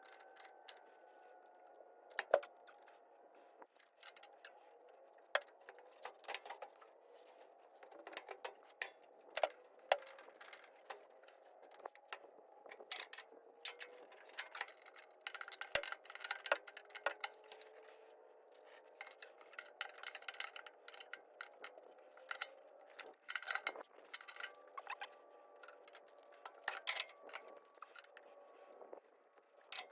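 Irregular sharp metallic clicks and clinks, over a faint steady hum whose pitch drifts slowly.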